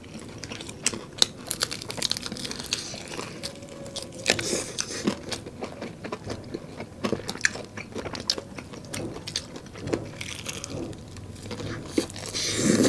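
Crispy fried chicken and chicken nuggets being bitten and chewed: many short, sharp crunches at an irregular pace, with wet chewing between them.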